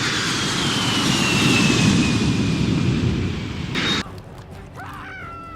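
A loud, harsh, heavily distorted sound effect, a processed variation of a fart sound, with a falling whistle-like tone over it. It cuts off suddenly about four seconds in, leaving a quieter stretch with a faint held high tone.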